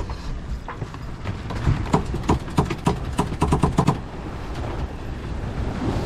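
Fast, uneven clicks and knocks aboard a sailboat just after a tack, starting about a second and a half in and stopping about four seconds in, over steady wind and water noise.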